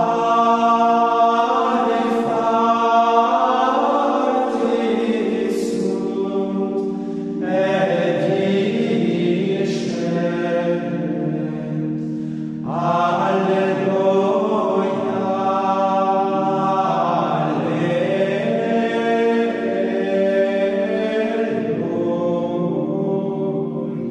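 Gregorian chant sung by a choir in long phrases over a steady held low drone, with two short breaks between phrases.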